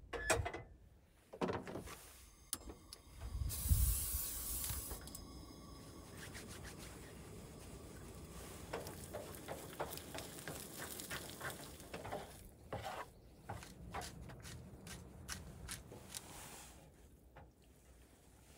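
Eggs frying on a two-burner propane camp stove: the pan clanks onto the grate, a loud burst of hiss comes about three seconds in, then a steady sizzle runs under a spatula scraping and tapping against the frying pan.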